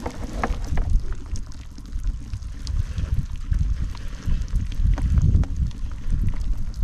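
Water trickling and dripping from a plastic strainer heaped with freshly caught whitebait, with a few small ticks, under a louder irregular low rumble of wind buffeting the microphone.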